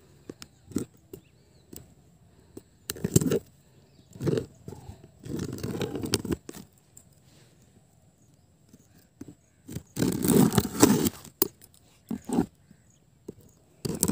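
Cardboard box being worked open with small spring-loaded pliers at the nails that hold it shut. Irregular bursts of scraping and clicking, the longest lasting over a second about ten seconds in.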